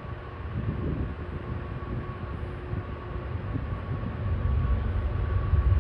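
Slow-moving CSX freight train rolling past with a low, steady rumble that grows louder near the end.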